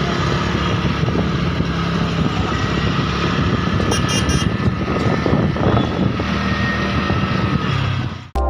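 Motorcycle engine running with road and traffic noise while riding through slow city traffic. A few short, high beeps come about four seconds in, and the sound cuts off just before the end.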